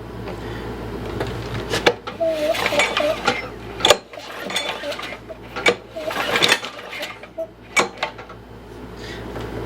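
Metal clinks, knocks and rattles from hands-on work on a push mower's engine, over a low steady hum.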